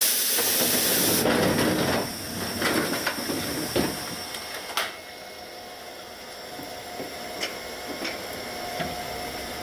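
Sapporo City Tram 240-class streetcar heard from the cab: a loud hiss of air for about the first second, then several clunks and knocks, then the car running with a steady hum and a faint steady tone.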